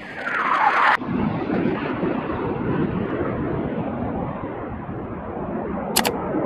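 Fighter jet noise. In the first second a whooshing pass falls in pitch and cuts off abruptly. A steady rumbling jet noise follows, with a brief click near the end.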